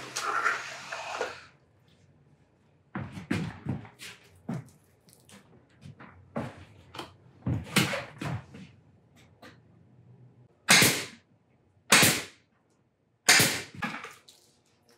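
Rustling of the reflective lining and knocks from handling the plywood box, then three loud shots from a staple gun, about a second apart near the end, as the lining is stapled to the box.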